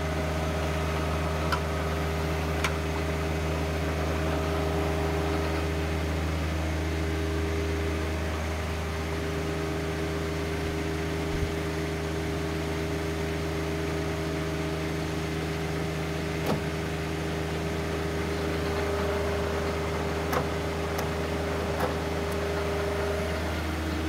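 A compact tractor's engine running steadily at PTO speed, driving a Woodland Mills WC46 wood chipper with nothing being fed in, a steady low drone with a few light clicks.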